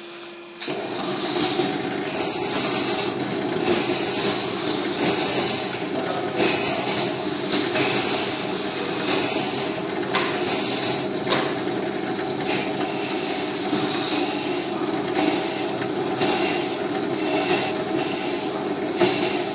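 Electric-motor-driven NMRV worm gearbox running with a steady hum and a swishing noise that recurs about once a second. This is the loud, noisy running that comes when the worn part of the gear comes into mesh.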